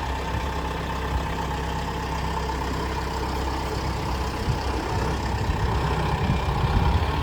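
Engine running steadily at an even speed, getting a little louder in the second half.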